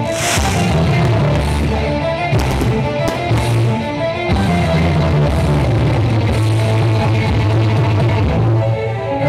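Loud rock music with guitar and drums, the soundtrack of a pyromusical fireworks show.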